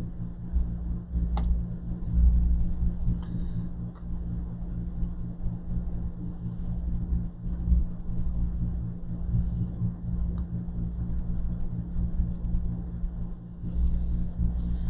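Steady low rumble with an electrical hum under it, and a few faint light clicks.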